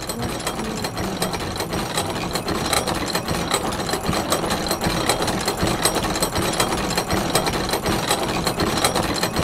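Harsh electronic noise soundtrack of rapid, machine-like clattering, growing slightly louder; low bass notes die away right at the start.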